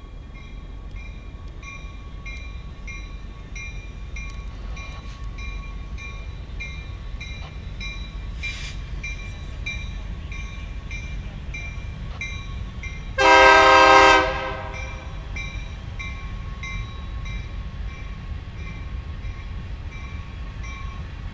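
Freight train passing behind EMD SD60M diesel locomotives, a steady low rumble, with a regular ringing about twice a second throughout. About halfway through, one short locomotive horn blast of about a second, the loudest sound.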